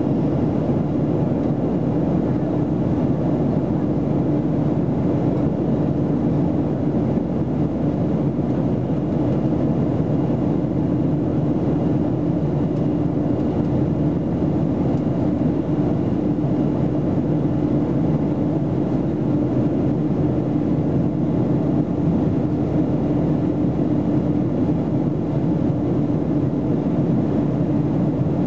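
Cabin noise of a Boeing 737-300 in flight, heard from a seat beside its CFM56 turbofan engine: a steady rush of engine and airflow with a constant low hum.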